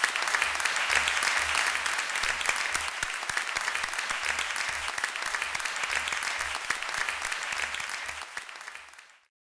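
Audience applauding, a steady mass of hand claps that fades out near the end.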